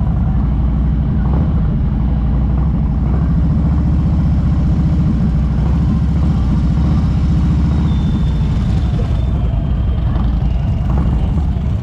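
Harley-Davidson V-twin motorcycle engine running steadily at low speed while riding.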